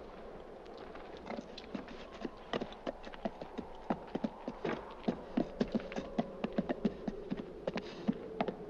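Hooves of walking horses clopping on dry dirt, mixed with footsteps, as the horses are led by hand. The steps become louder and closer together from about two and a half seconds in.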